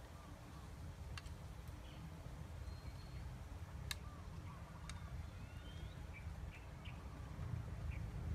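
Faint outdoor ambience: a low steady rumble with scattered short bird chirps. Three sharp clicks, about a second in and again near the middle, come from a metal spoon against a ceramic bowl.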